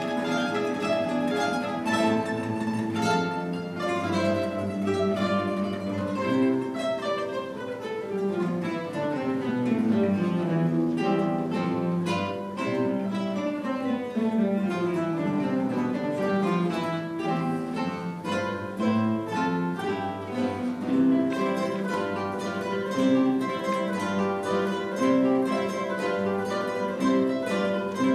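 A large guitar ensemble playing many plucked acoustic guitars in parts, with descending scale runs a third of the way through and again a little later.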